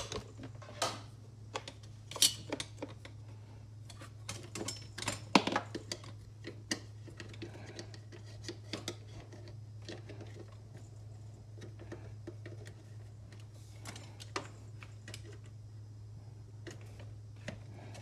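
A steady low electrical hum under scattered sharp clicks and light clattering, with a cluster of louder clicks about five seconds in.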